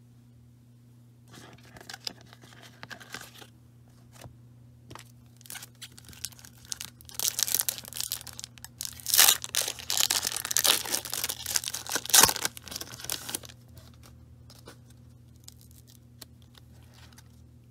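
A football card pack's wrapper being torn open and crinkled, a dense run of tearing and crackling lasting about six seconds midway, with lighter rustling of handling before it.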